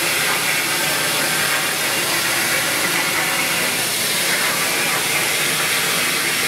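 Loud, steady hiss of static noise, spread evenly across all pitches and brightest in the treble.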